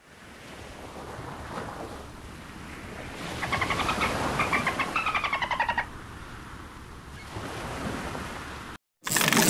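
Whale call in underwater hiss: a rapidly pulsed call that rises and falls in pitch for about two and a half seconds near the middle, and the hiss cuts off shortly before the end.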